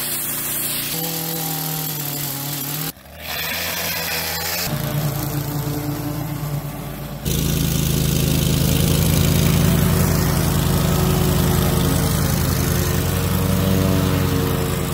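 Short clips of outdoor power equipment cut one after another, each starting and stopping abruptly, opening with the hiss of a pressure washer's spray. From about halfway a Cub Cadet riding lawn mower's engine runs steadily as it mows.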